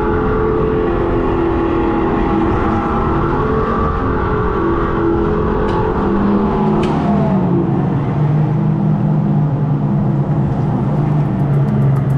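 Go-kart's piped-in artificial engine sound, played from a speaker behind the seat, rising and falling in pitch with the throttle. After about seven seconds it settles to a lower, steadier note. A couple of sharp clicks come around the middle.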